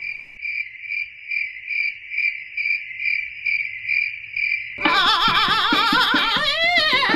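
Cricket chirping, one high chirp pulsing about three times a second, used as a comic sound effect over the stunned silence. About five seconds in it gives way to loud music with warbling, wavering pitches over a pulsing beat.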